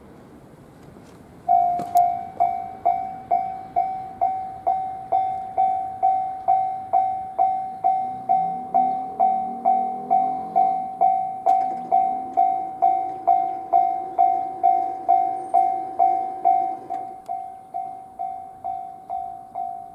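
Japanese railway level-crossing warning bell starting about a second and a half in, ringing a single clanging tone at a steady rate of about two strikes a second, meaning a train is approaching; it gets quieter near the end.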